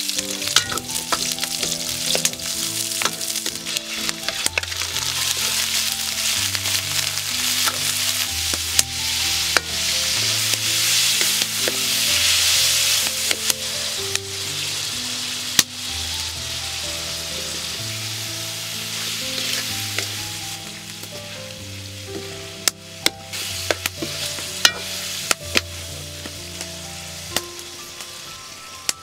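Onion, garlic and liver sizzling in a hot wok, stirred with a ladle that scrapes and knocks against the pan. The sizzle is loudest about halfway through and then eases, with a run of sharp ladle knocks near the end. Soft background music underneath.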